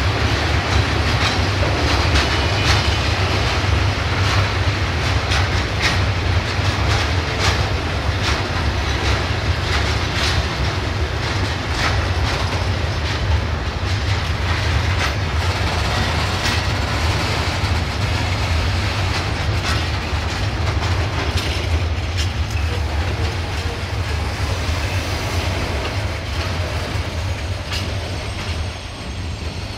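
A train rolling past, its wheels clicking over the rail joints over a steady low rumble, getting quieter in the last couple of seconds.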